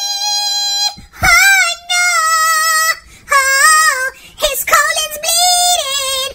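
A man singing in a high, electronically altered voice: four held notes with short breaks between them.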